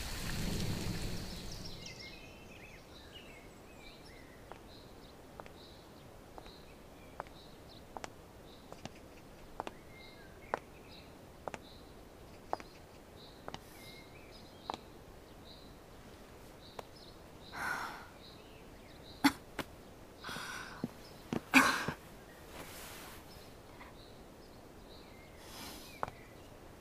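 A woman coughing in a few short fits in the last third, over quiet outdoor ambience with a faint chirp repeating about once a second and sharp clicks at roughly one-second spacing. A brief rush of noise opens it.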